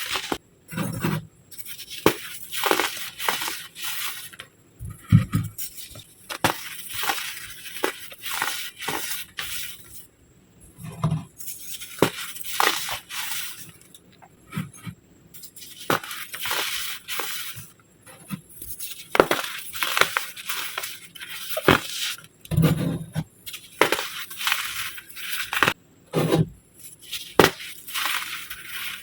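Hardened baking soda shapes crushed and crumbled, a close run of crisp crunches and gritty crackles with a few dull thumps as pieces give way.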